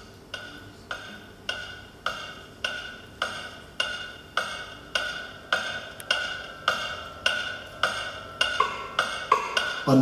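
Wood block struck in a steady, even beat, a little under two strikes a second, each strike ringing briefly at the same pitch. About a second and a half before the end, extra strikes start falling between the beats.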